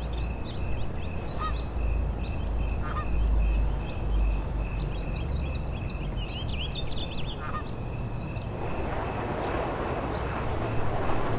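Short bird calls repeated every second or two over a low rumble, with a flurry of higher chirps around six to seven seconds in; a steady rushing noise builds near the end.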